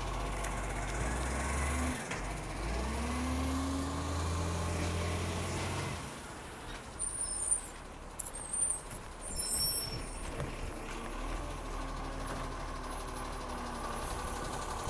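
Diesel engine of a side-loader garbage truck running as it moves along the kerb. It revs up, then drops back about six seconds in. A few short, sharp sounds follow near the middle before the engine picks up again as the truck pulls up at the next bin.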